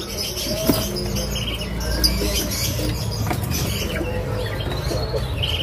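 Caged songbirds in a bird market giving scattered short chirps, a few times, over a steady low rumble of background noise.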